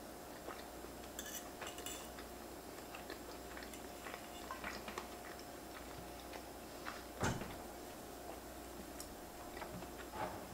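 Quiet, close-miked chewing of a mouthful of pasta with small mouth clicks, and a metal fork clinking against an enamelled pan; one sharp clink about seven seconds in is the loudest sound.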